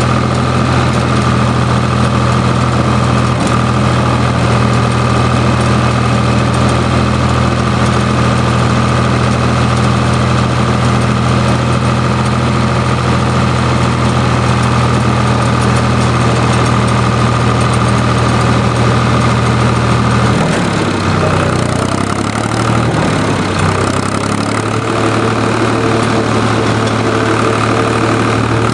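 IHC 383 tractor's three-cylinder diesel engine running steadily under way, heard from the seat close to the exhaust stack. About twenty seconds in, the engine note changes and wavers for a few seconds, then settles into a steady run again.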